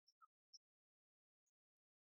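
Near silence, with a few faint, very short high chirps early on and one more about a second and a half in.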